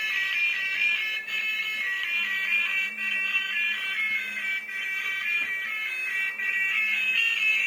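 High-pitched electronic beeping melody, the notes stepping up and down several times a second without a break.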